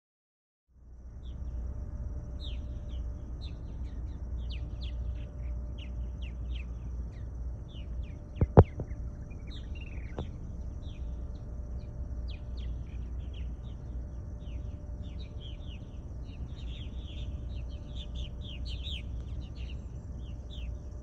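Many small birds chirping in quick, scattered calls over a steady low rumble, with a thin steady high tone behind them. Two sharp knocks come about eight and a half seconds in, and a lighter one soon after.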